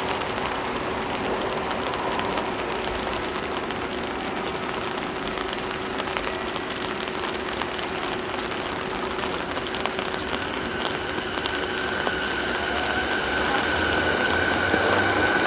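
Steady rain hiss, with a steady low hum for the first two-thirds. From about ten seconds in, a Keihin-Tohoku Line electric train comes in on the near track: its motor whine rises and grows louder toward the end.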